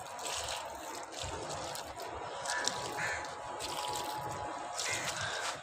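Water poured from a container trickling steadily onto the soil of a potted aloe vera plant.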